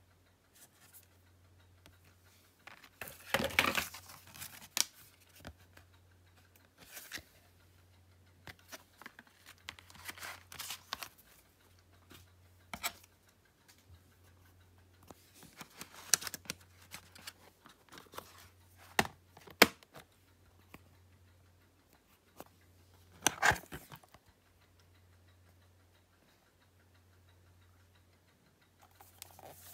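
Blu-ray and steelbook packaging being handled: scattered clicks, scrapes and rustles of plastic and card, with the loudest rustles about three seconds in and near the end, over a faint steady low hum.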